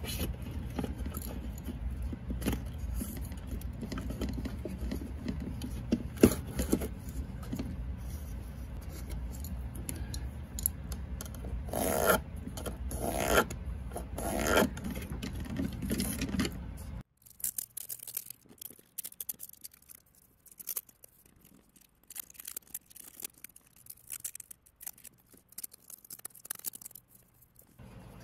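Handling noise as a plastic inline duct fan and its 3D-printed mounting parts are pushed into place against a wooden joist: scraping, rustling and small knocks and clicks over a low steady hum. About two-thirds of the way through, the hum cuts off abruptly, leaving only quieter scattered clicks and rubbing.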